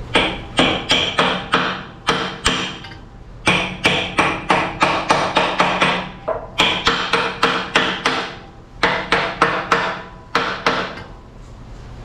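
Hammer tapping a snug-fitting metal ring into a bore, struck in quick runs of about three to four blows a second with short pauses, each blow ringing. The ring is a near-interference fit, within a couple of thousandths, being driven home.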